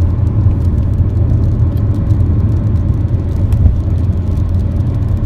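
Steady low rumble of a car's road and engine noise heard from inside the cabin while driving.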